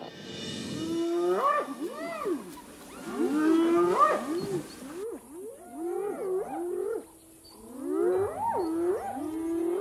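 Spotted hyenas calling, several voices overlapping in rising and falling whoops that come in about four bouts, each a couple of seconds long.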